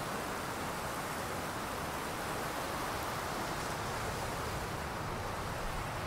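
Steady ambient noise, an even rushing hiss without distinct events.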